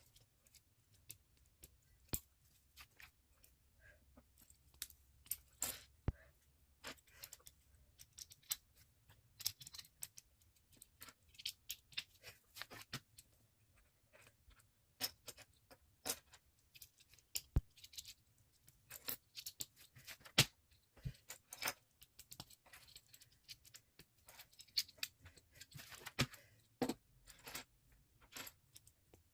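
Plastic Lego pieces clicking and clattering as they are handled and pressed together, in quick irregular sharp clicks.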